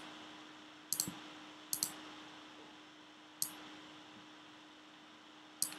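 Computer mouse clicked four times at uneven intervals, several clicks heard as a quick press-and-release pair, over a faint steady hum.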